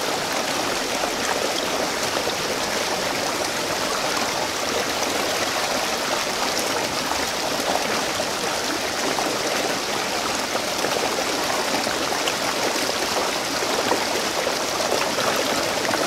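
Steady rush of a shallow rocky stream, water running over stones.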